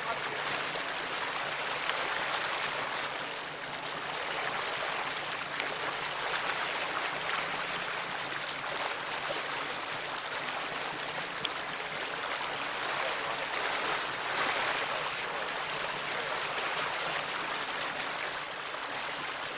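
Steady rush of water along the hull and in the wake of a 1985 Sea Sprite motorboat underway, with a low engine hum underneath; it swells a little twice.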